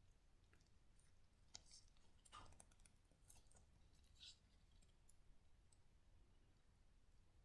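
Near silence: faint room tone with a few soft clicks and rustles, about two seconds in and again around four seconds.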